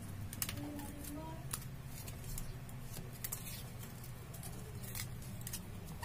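Scattered sharp clicks and snips from hand work on a faucet repair, at irregular spacing over a steady low hum.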